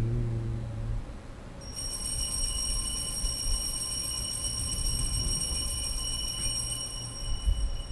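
Altar bells shaken continuously at the elevation of the chalice, marking the consecration. The bright, high, shimmering ringing starts about two seconds in and stops near the end.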